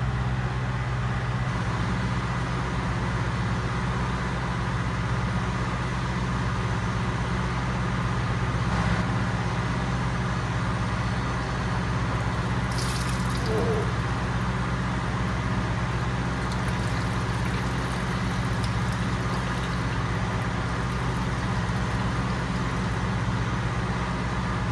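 An engine running steadily at constant speed, a low drone with an even pulse. A brief sharp clink about 13 seconds in.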